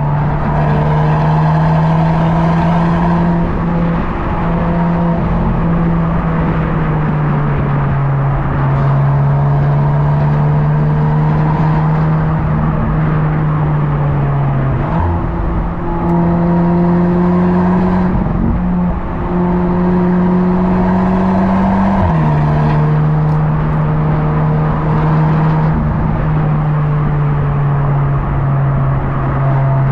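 Audi S3 (8Y) turbocharged 2.0-litre four-cylinder engine driving under steady load, a loud drone that steps up and down in pitch a few times as the gears change, over a steady rush of road noise.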